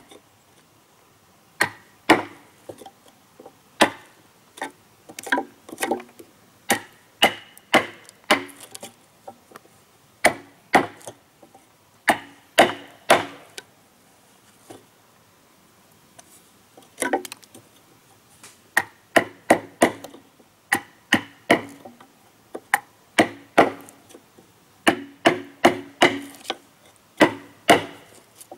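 Repeated sharp chopping strikes of a tool on wood, coming in irregular runs of a few blows, with a pause of a couple of seconds about halfway through.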